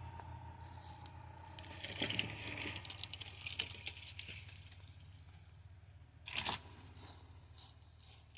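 Dry twigs and brush crunching and rustling in irregular bursts, with a louder crackle about six seconds in, over a faint steady low hum.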